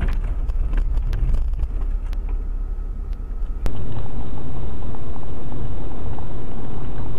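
Road and engine noise of a moving car heard through a dashcam, with scattered small clicks. About halfway through it cuts abruptly to a louder, duller, steady rumble.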